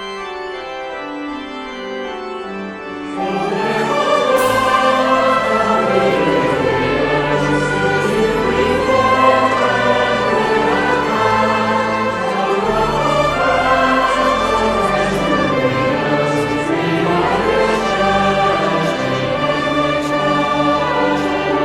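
Music interlude of choral singing with instrumental accompaniment, starting softer and swelling fuller about three seconds in.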